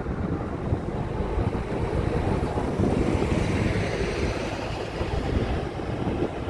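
Highway traffic noise: engine rumble and tyre hiss from vehicles on the road, with wind buffeting the microphone. The hiss swells about three seconds in.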